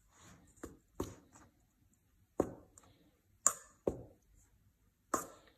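A utensil knocking against a stainless steel bowl while dry flour is stirred: about six sharp, irregular clinks with a short ring.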